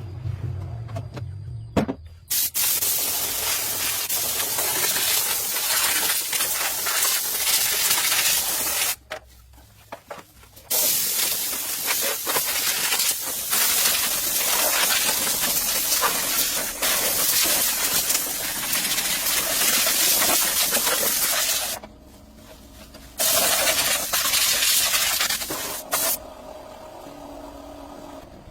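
Pressurized spray hissing in three long bursts, about seven, eleven and three seconds long, each starting and stopping abruptly.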